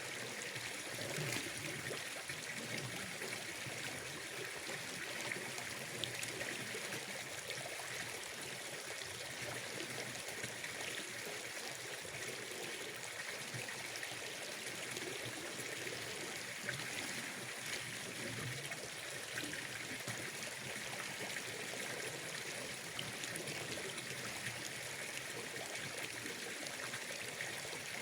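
Water trickling and flowing steadily, an even hiss that does not let up.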